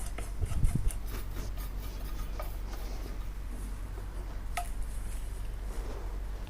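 Light clicks and taps of a pan and spoon as dry-roasted spices are moved onto a plate, with a soft knock about half a second in and a sharper click a little past halfway, over a low steady hum.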